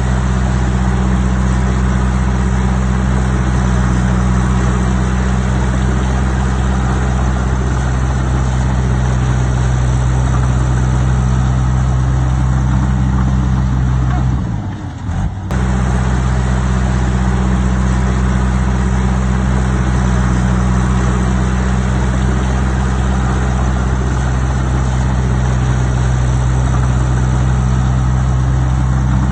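Heavy earthmoving machine's diesel engine running steadily at a constant speed, with a brief drop and break about halfway through.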